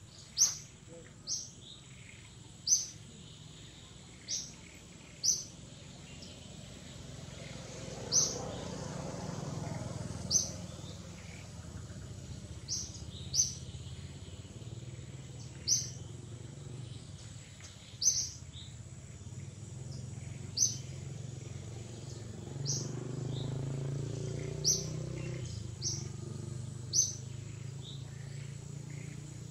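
A bird calling with short, sharp high chirps, one every one to two seconds. A faint low rumble swells in the background about a third of the way through and again near the end.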